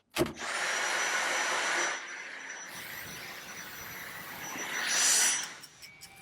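A vacuum cleaner running with a steady rushing noise and a faint high whine, loud for the first two seconds, then quieter, swelling again about five seconds in before fading out.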